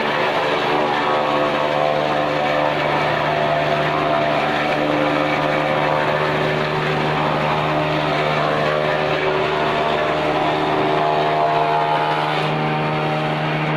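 JF-30 Evo chaff cutter running on its electric motor, a loud steady whir and hum, while green fodder stalks are fed into it and chopped.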